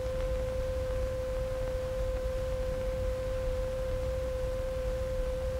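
Steady single-pitched test tone from a loudspeaker under test, holding at one mid pitch with faint overtones, over the low rumble and hiss of an early film soundtrack. The tone is the test signal that a microphone moved over the speaker picks up to find a defective spot.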